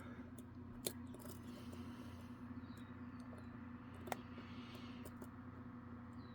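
Faint, sparse metallic clicks of a lock pick working the pin stack of a lock under tension, the two sharpest about a second in and about four seconds in, over a low steady hum.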